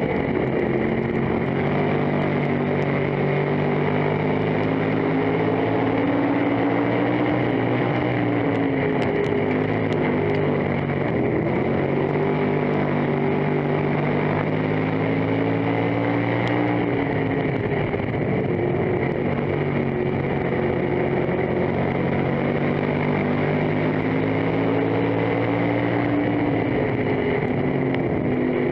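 Dirt-track stock car's engine heard from inside the cockpit at racing speed, its pitch falling off and climbing back again and again as the throttle is lifted and reopened, with a sharp drop a little past halfway.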